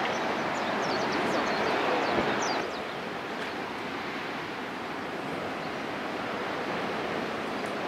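Steady outdoor noise, with wind on the microphone. A few short high chirps sound in the first two and a half seconds, and the noise drops a step at about that point.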